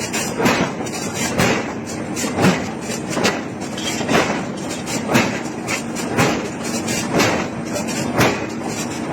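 Hammer blows on iron being forged, in a steady rhythm of about one heavy strike a second with lighter knocks between them.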